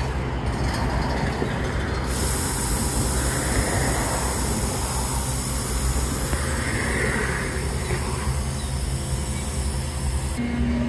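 Freight train at close range: a steady low rumble throughout, with a high steady hiss from about two seconds in until near the end.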